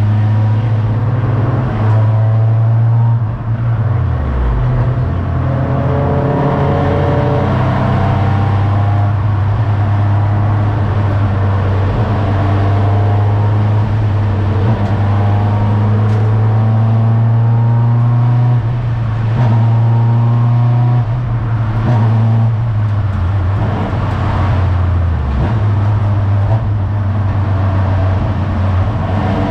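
Race car engine heard from inside its stripped, caged cabin, held at high revs on track. The note climbs again and again under acceleration, and falls briefly about four seconds in and again near 25 seconds as the revs drop.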